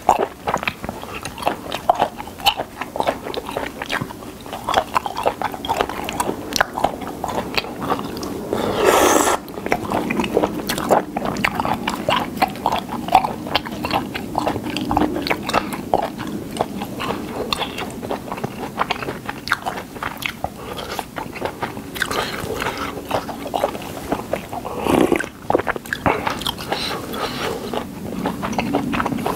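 Close-miked chewing of spicy whelk and somen noodle salad: steady wet mouth clicks and smacks, with a louder, longer swell of noise about nine seconds in and a shorter one near the end.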